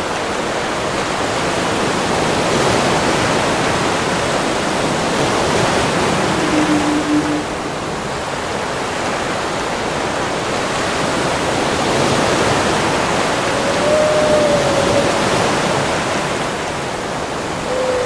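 Steady rush of ocean surf with whale song laid over it: a few long, separate moans, a low one about six seconds in and a higher one that rises and falls slightly about fourteen seconds in, with another starting at the very end.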